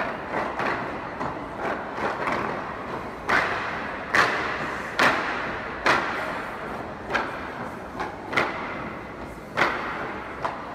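A troupe of dancers in wooden clogs stamping and clacking in unison: a loud clog strike about once a second, with softer steps between, echoing in a large hall.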